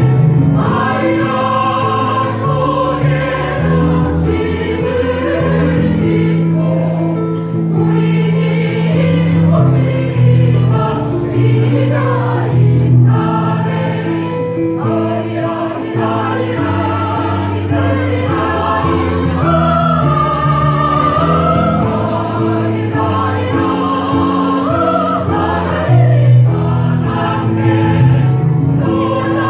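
A mixed choir of women's and men's voices singing a piece in harmony under a conductor, holding long chords that change every second or two.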